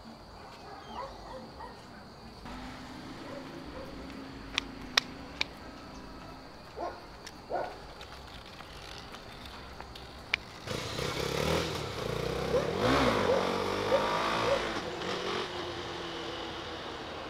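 Quiet street ambience with a few sharp clicks about five seconds in. Then a motor vehicle approaches, drives past close by, loudest about two-thirds of the way through, and fades away.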